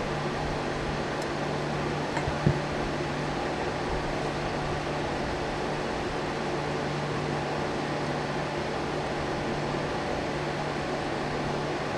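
Steady fan-like hiss with a low hum throughout, and one small tap about two and a half seconds in.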